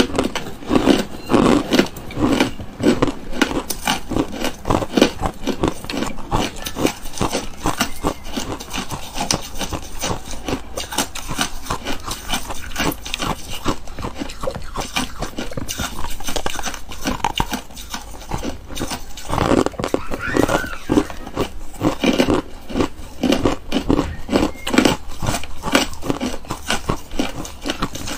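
Ice being crunched and chewed close to a clip-on microphone: a dense, unbroken run of crisp crackling bites.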